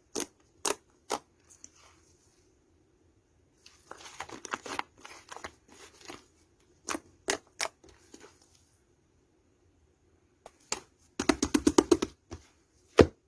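Sharp clicks and snaps from something handled up close. There are a few single snaps, a crackling stretch about four seconds in, a quick run of a dozen or so clicks just after eleven seconds, and one last loud snap near the end.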